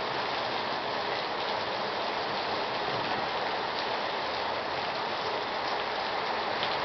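Torrential rain pouring down steadily: an even hiss of downpour.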